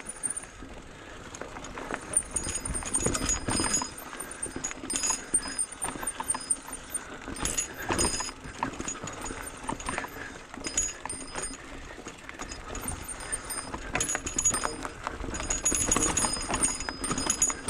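Mountain bike rolling down a rough dirt singletrack over roots and rocks: irregular knocking and rattling from the tyres and frame, with light metallic clinks on the bigger bumps.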